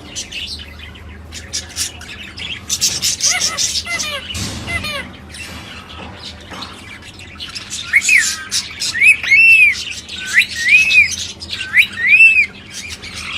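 A parrot calling: a quick series of short squawking calls about three seconds in, then a run of loud, clear rise-and-fall whistles repeated about half a dozen times from about eight seconds in.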